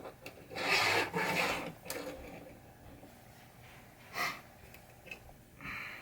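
Adhesive drop-target decals being peeled and rubbed by hand, giving a rasping, tearing noise that runs for over a second, then two short rasps later on.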